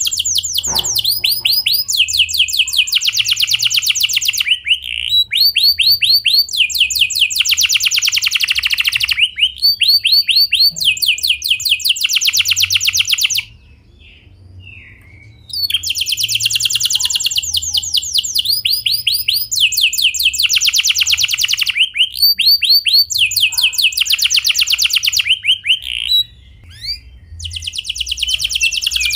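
Domestic canary singing a long song of clear rolling trills: runs of very fast repeated notes, each a second or two long before switching to a new pitch. The song stops for about two seconds near the middle.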